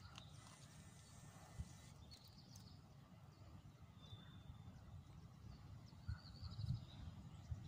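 Near silence: a faint low rumble that swells a little near the end, with a few faint bird chirps.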